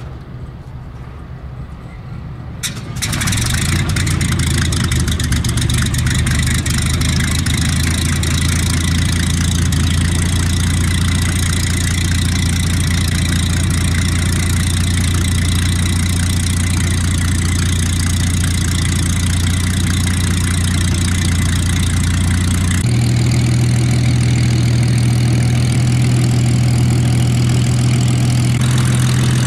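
Hawker Hurricane Mk.I's Rolls-Royce Merlin III V12 engine being started: the propeller turns over slowly on the starter, the engine fires with a sharp crack about three seconds in, then settles into a steady idle. Its note shifts slightly higher near the end.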